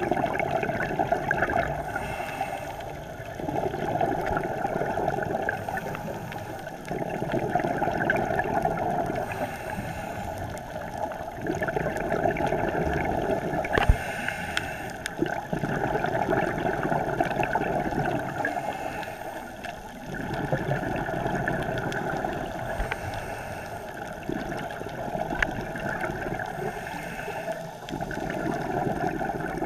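Scuba regulator breathing underwater: swells of exhaled bubbles gurgling, with a brief hiss of inhalation between them, repeating about every four seconds. One sharp click near the middle.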